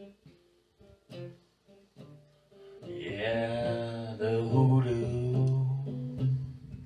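Black archtop guitar playing a slow blues intro: a few sparse picked notes with pauses, then from about three seconds in a louder passage of ringing, held chords that fades near the end.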